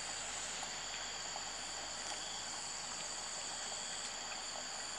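Insects in a rice paddy calling steadily at two high pitches, with a few faint small clicks.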